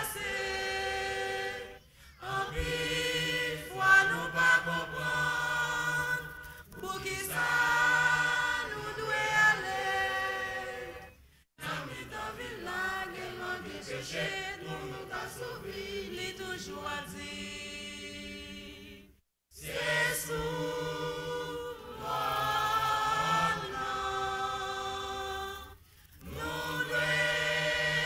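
Mixed choir of men and women singing together in sustained phrases, with a few short breaks between phrases.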